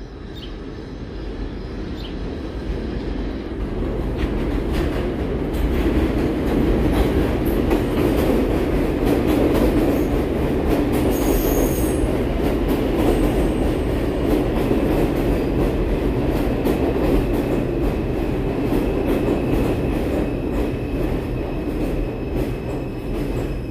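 A New York subway ② train of R142 cars running into an elevated station and rolling along the platform. The wheel noise builds over the first few seconds to a loud, steady run with clicking over the rail joints. A brief high squeal comes near the middle, and a steady high whine runs through the second half.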